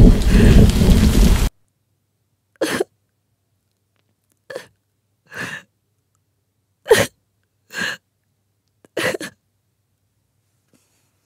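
Music with strings stops abruptly about a second and a half in. It is followed by about six short, separate sobs and sniffs of women crying, spaced roughly a second apart, with silence between them.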